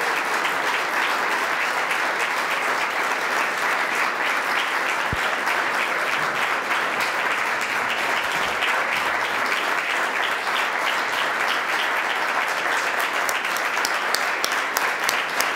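A large seated audience applauding in sustained, steady clapping, with a few sharper, closer claps standing out near the end.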